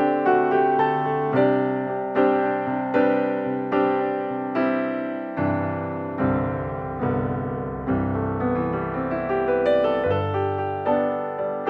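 Background piano music: single notes and chords struck at an even, unhurried pace, each one fading away before the next.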